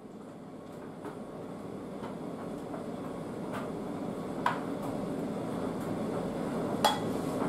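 Kitchen sounds fading in: a steady low rumble of room noise, with two sharp clinks of kitchenware against a bowl, the second ringing briefly near the end.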